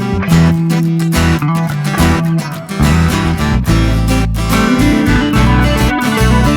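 Background music: a song with guitar over a bass line and a regular drum beat.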